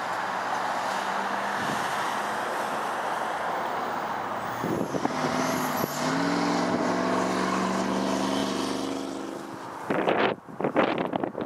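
Road traffic noise from a nearby highway. About halfway through, a heavy road vehicle's engine pulls away, rising in pitch and then holding steady for a few seconds. Near the end, wind buffets the microphone in strong gusts.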